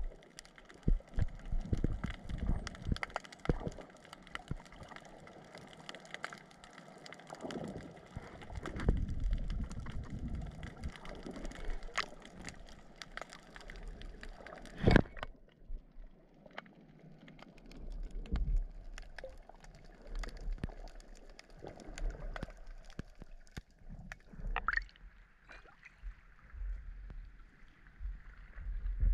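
Underwater sound heard through an action camera's waterproof housing: muffled water movement and gurgling with a low rumble and many scattered clicks and knocks, one loud knock about halfway through. Near the end the camera comes up out of the water and the sound turns thinner and hissier.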